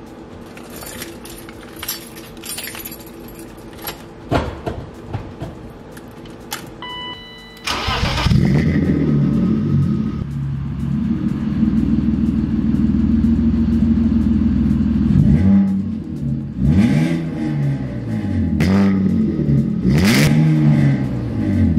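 BMW E36's M50 straight-six cranking and catching about eight seconds in after some clicks, then running loud through a Flowmaster 40 series muffler with the catalytic converters and resonator taken out. It idles steadily, then revs with several throttle blips near the end; the owner finds it sounds terrible.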